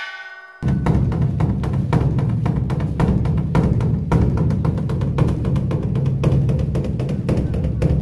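Large Korean Buddhist dharma drum (beopgo) beaten in a fast, continuous roll. The drumming starts abruptly about half a second in, cutting off a brief bell-like ringing tone.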